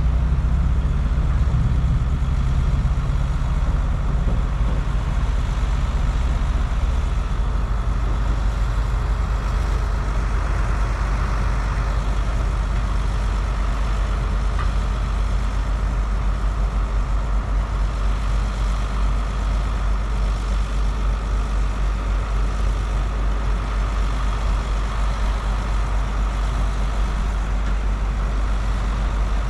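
Caterpillar hydraulic excavator's diesel engine running steadily: a deep, continuous drone with a fainter higher hum over it.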